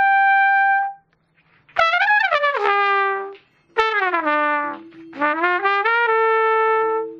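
Trumpet playing: a held high note cuts off about a second in. After a short silence come phrases of bending, sliding notes and then falling notes, with a lower steady tone underneath in the second half.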